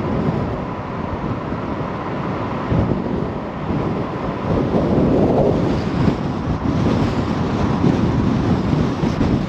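Wind buffeting the microphone: a loud, uneven low rumble and rush that swells around the middle.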